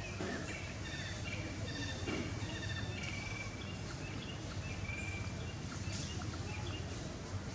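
Small birds chirping and trilling over and over, short high calls scattered throughout, over a steady low hum.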